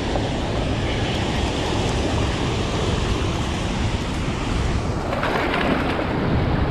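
Steady rush of water pouring through a dam spillway and churning over the rocks, with wind buffeting the microphone. About five seconds in the rush turns brighter and splashier.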